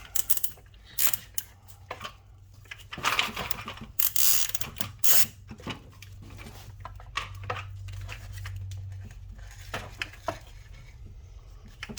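Plastic clicking, scraping and rustling as a heavy nylon zip tie is worked through a string trimmer's spool housing and around its stem. There are several short scraping rushes in the first half, then lighter clicks and taps.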